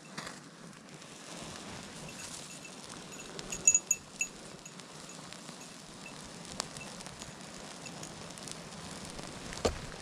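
A small kindling fire of stringy lichen and dry twigs catching and burning, with a steady hiss and scattered crackles and pops. A quick run of bright, high clinks comes about four seconds in, and a sharp snap sounds near the end.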